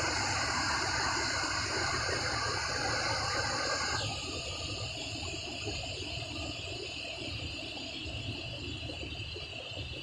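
Waterfall swollen after rain, its water rushing in a steady noise. About four seconds in, its tone changes suddenly.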